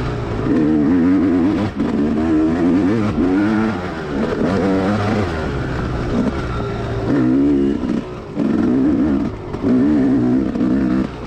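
Dirt bike engine revving up and down under hard riding, its pitch rising and falling every second or so, with a few brief drops as the throttle is shut.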